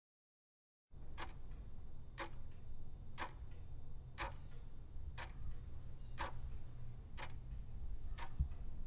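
Clock-tick sound effect for a quiz countdown timer: eight sharp ticks, one a second, over a low steady hum. It starts about a second in and cuts off suddenly near the end.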